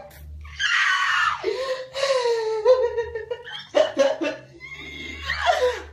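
A young man's exaggerated, theatrical fake crying: one long high wail that slowly sinks in pitch, then short broken sobs.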